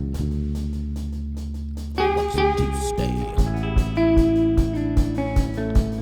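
Live band playing an instrumental break. Held low notes with light cymbal ticks come first, then about two seconds in a guitar lead line enters over them, and a steady kick-drum beat joins shortly after.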